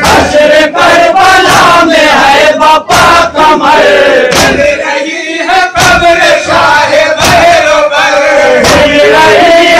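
A group of men chanting a Shia noha (Muharram lament) loudly in unison into microphones, with sharp chest-beating slaps (matam) breaking in about once or twice a second.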